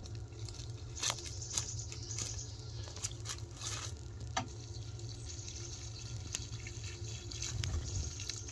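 Water pouring from a plastic watering can onto freshly dug soil around a newly planted sapling, a steady splashing hiss. There are a couple of light knocks about a second in.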